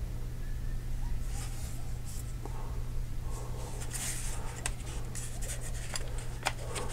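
Faint rubbing and a few light clicks from hands handling a polymer Stribog lower receiver with a banana magazine seated in it, over a steady low hum.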